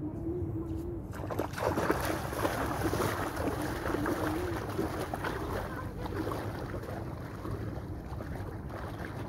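Shallow sea water splashing as a person wades through it, starting about a second in, over a steady low rumble of wind on the microphone.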